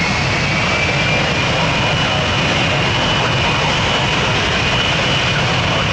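Jet engines of an Ilyushin Il-76TD, Soloviev D-30 turbofans, running steadily and loud. A high whine over the dense engine noise rises slowly in pitch through the whole stretch.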